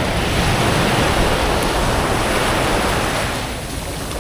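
Sea surf: a wave breaking and washing up the shore, swelling and then easing off about three seconds in, with wind rumbling on the microphone.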